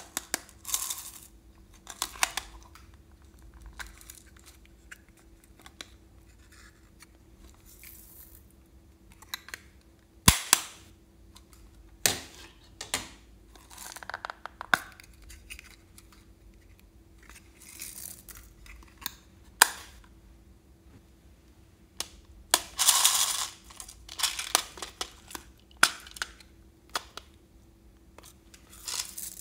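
Small plastic toy cases being handled and snapped open and shut: sharp plastic clicks every few seconds, with short rustling and rattling of handling noise between them, the longest about three-quarters of the way through.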